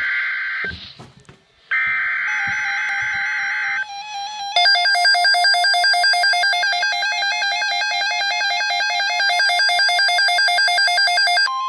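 NOAA Weather Radio emergency alert: two buzzy digital SAME header data bursts, one ending just after the start and another about two to four seconds in. A weather radio's rapidly pulsing electronic alarm beep follows. Near the end a steady single warning tone near 1 kHz begins.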